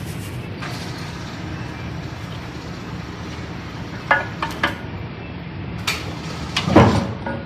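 Steady workshop background noise with a few sharp metal clinks about four to five seconds in and a heavier metal knock near the end, from work on a truck's rear axle tube.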